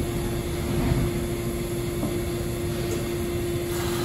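Bombardier R179 subway train standing at the platform with its doors closed, its on-board equipment giving a steady hum with one held tone over a general rush of noise.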